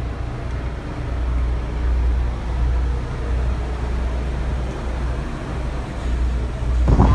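A river sightseeing boat's engine drones steadily inside the passenger cabin, a deep hum under a wash of running noise. Near the end a sudden, louder rush of wind on the microphone comes in.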